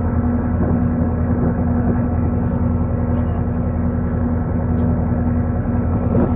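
Boat engine running steadily at a constant speed, a low, even drone.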